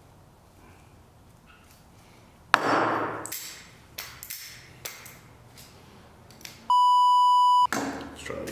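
Handling of a rifle's bolt carrier group and gloves: a sharp clack about two and a half seconds in, then several small clicks. Near the end comes a steady high beep lasting about a second, the loudest sound, of the kind used to bleep out a word.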